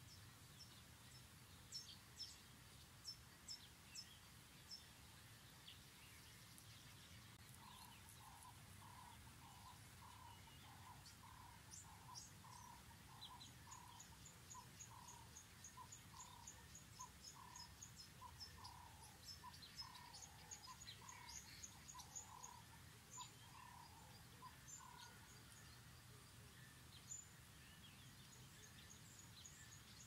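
Faint outdoor birdsong: scattered high chirps and quick trills, with a lower call repeated about twice a second through the middle stretch, over a low steady background hum.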